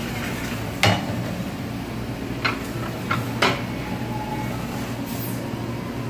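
White ceramic plates clinking as they are handled and stacked on a stainless steel dish counter: four sharp clinks, the loudest about a second in. A steady low hum runs underneath.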